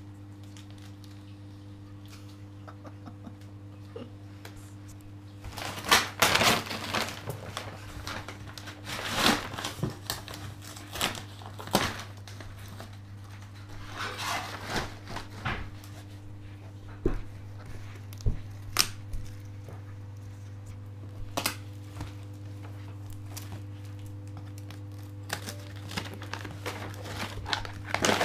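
Wrapping paper being torn and crumpled off a large cardboard box in irregular bursts of crinkling and rustling, starting about five seconds in, over a steady low hum.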